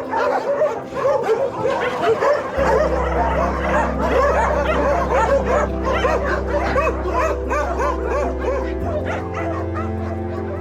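Many dogs barking and yipping at once in a dense, overlapping chorus of short calls, thinning out near the end, over background music with sustained chords.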